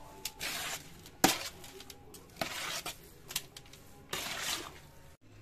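Perforated metal spoon stirring and scraping curd rice around a large metal bowl in three short scrapes, with a sharp clink a little over a second in as the spoon knocks the bowl.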